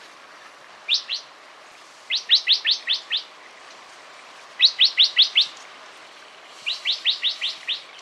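Yellow-eared bulbul calling: quick runs of short, high, upward-sweeping notes. A pair of notes comes about a second in, then three runs of five or six notes about two seconds apart.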